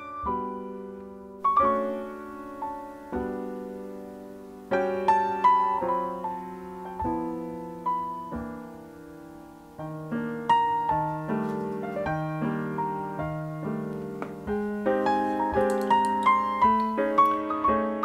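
Background solo piano music: single struck notes and chords that ring and fade, slow at first and growing busier through the passage.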